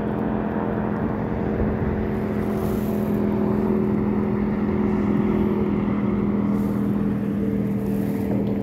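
Speedboat engine running at speed, a steady hum that holds one pitch.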